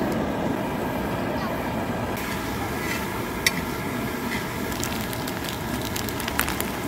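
Food sizzling and crackling in a hot pan over a steady low rush, with a sharp clack about halfway through and a lighter one near the end.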